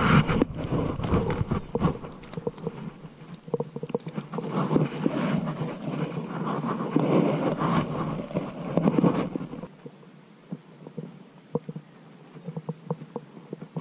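Irregular rustling, clattering and splashing as a hooked fish is swung out of the water and landed among water hyacinth stems, with handling noise over a low rumble; it turns much quieter, with only scattered clicks, about ten seconds in.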